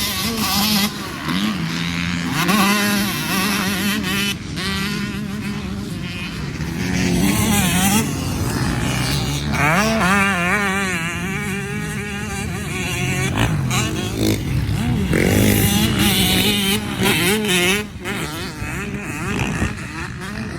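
Dirt bike engines revving hard and repeatedly rising and falling in pitch as they are ridden through gears around a motocross track.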